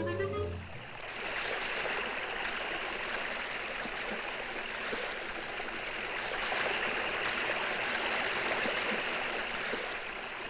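Steady rushing water of a big underground waterfall, a sound effect on a 1940s cartoon soundtrack. The last notes of the music cut out within the first second.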